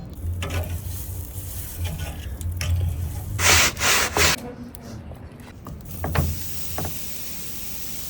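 Rough scraping and rubbing strokes, with three loud rasping strokes about three and a half to four and a half seconds in.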